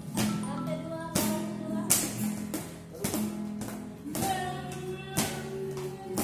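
Acoustic guitar strummed with people singing along, cut by sharp percussive knocks about once a second.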